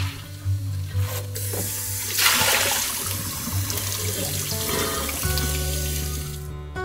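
Kitchen tap water running and splashing over a glass dome cover being rinsed in the sink, starting about two seconds in and stopping shortly before the end.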